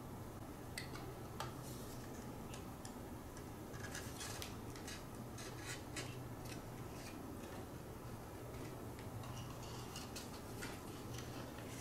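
Faint, scattered clicks and rustles of cardstock being handled and pressed together, over a low steady hum.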